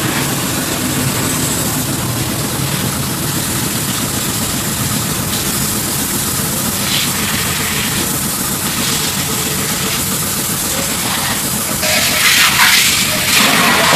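Steady hiss of water spraying from a hose nozzle onto fish in a plastic basket. About twelve seconds in, the spray hits water in a metal basin and turns into louder splashing.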